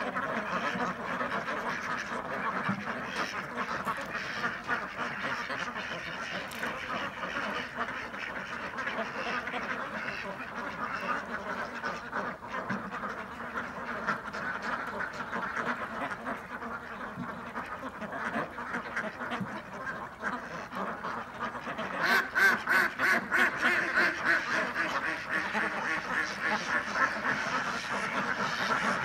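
A large flock of domestic ducks quacking continuously, many calls overlapping into a dense chatter. About three-quarters of the way through, the quacking grows louder into a run of rapid, repeated quacks.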